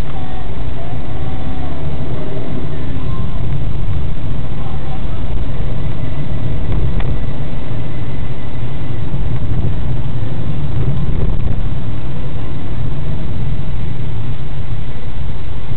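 Car driving slowly along a town street, heard from inside the cabin: a steady low rumble of engine and road noise, with a single faint click about halfway through.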